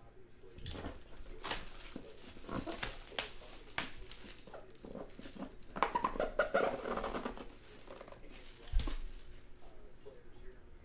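Handling noise from opening a sealed box of trading cards: plastic wrap crinkling and tearing, with scattered clicks and taps from packaging and cases, the busiest rustling about six seconds in.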